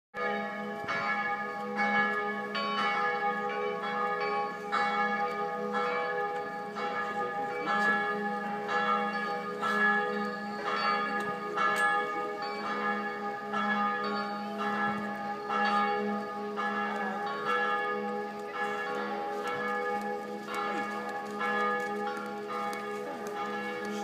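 Church bells ringing for midday: several bells of different pitch struck over and over, their tones overlapping and ringing on, over a steady low hum.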